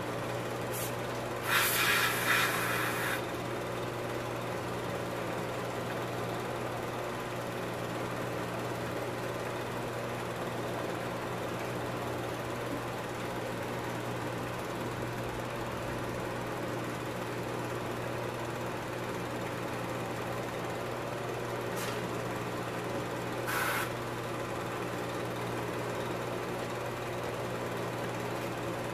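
Film projector running with a steady mechanical whir and hum. A brief burst of hissing noise about two seconds in, and a fainter one some twenty seconds later.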